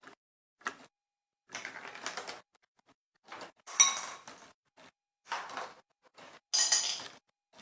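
Homemade wooden clock mechanism ticking at first, then giving way to a run of longer clattering, scraping bursts of wood and parts knocking, with a brief ringing clink about four seconds in.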